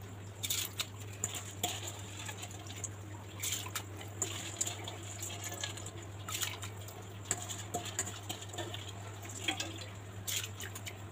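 Soaked rice being tipped from a steel bowl into a pot of hot water, with light wet splashes and scattered small clinks over a low steady hum.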